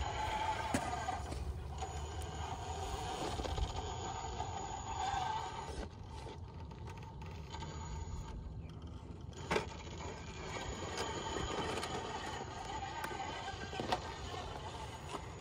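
RC rock crawler's electric motor whining, its pitch rising and falling with the throttle, as it crawls over rock, with a couple of sharp knocks of the tires or chassis on stone partway through.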